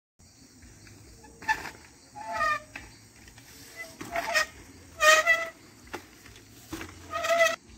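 A bird, goose-like, honking: about five short, pitched calls spaced roughly a second or so apart, one of them falling in pitch.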